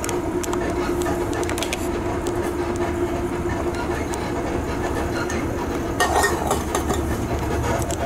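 Passenger train running, heard from inside the carriage: a steady rumble with scattered clicks and a steady hum that fades about halfway through, then a louder rattle about six seconds in.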